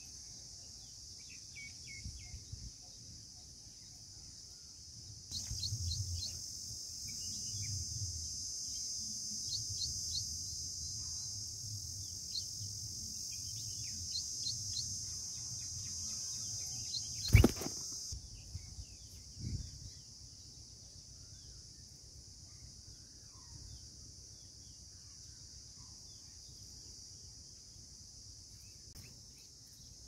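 Outdoor ambience with a steady high insect drone that grows louder about five seconds in and falls back about eighteen seconds in. Many short, high bird chirps are scattered through it, and there is one sharp knock midway.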